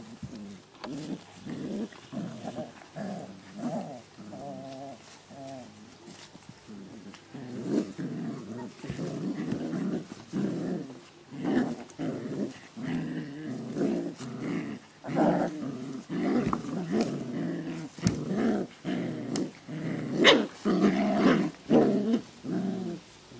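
Two puppies growling as they play tug-of-war with a cloth: a run of short, repeated growls that grows louder about a third of the way in and is loudest near the end.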